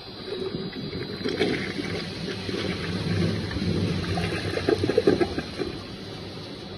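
Toilet flushing: water rushing through the bowl for about five and a half seconds, loudest near the end before it drops away to a steady background hum.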